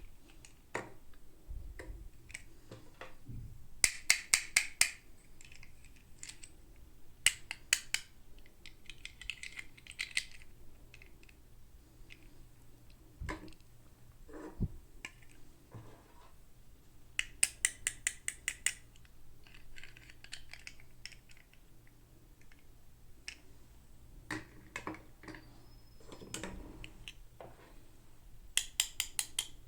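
Toy packaging being handled and opened: several bursts of quick, sharp clicks a few seconds apart, with crinkling between them.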